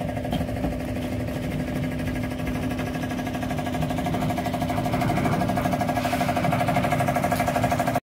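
Engine of a concrete mixer running steadily during a slab pour, with a regular fast pulsing that grows a little louder in the last few seconds.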